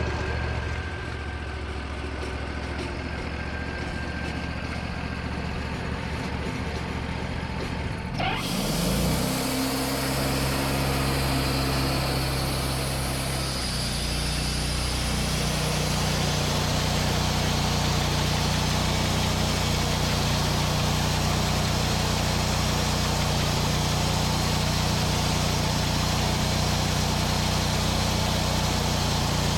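Sawmill engine running at a low speed, then revving up about eight seconds in and settling into a steady, working note with a continuous hiss of the blade cutting through a maple log.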